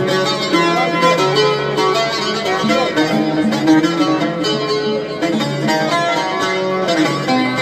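Music played on plucked string instruments: a busy melodic instrumental passage of many quick notes.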